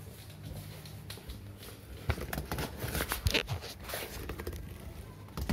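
Rustling, scuffing and light clicks of handling close to the microphone, busiest around the middle, over a low steady hum.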